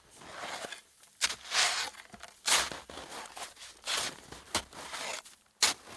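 A Black Diamond avalanche shovel being driven into deep snow and scooping it out, with about six crunchy strokes at irregular intervals.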